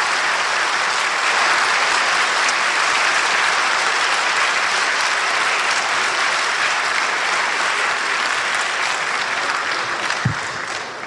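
Large audience applauding in a big hall, a dense steady clatter of many hands that dies away near the end. A single dull knock sounds about ten seconds in.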